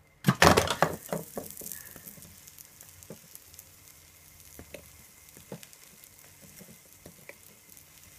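A pancake flipped in a non-stick frying pan with a slotted metal spatula: a loud burst of sizzling as the raw batter side lands in the hot pan about half a second in. It then settles to a softer, fading sizzle with scattered small pops.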